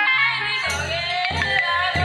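A song for a Karma dance: a singing voice carrying a gliding melody over instruments and a low bass.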